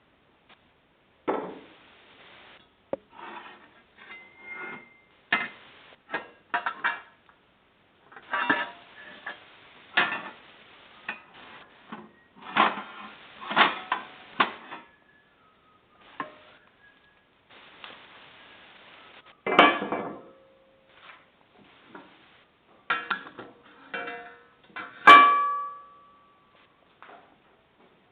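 Irregular clatter and knocks of tools and parts being handled and set down on a workbench, with a few ringing metallic clanks; the loudest clank comes near the end.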